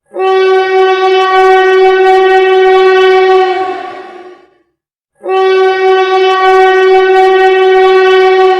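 Train whistle sounding two long blasts on one steady note, each held about three and a half seconds. Each blast sags slightly in pitch as it ends and trails off over about a second.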